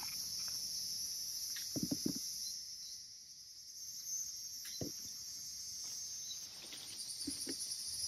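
Insects chirring in a steady, high-pitched drone, with a few short soft knocks, the loudest cluster about two seconds in.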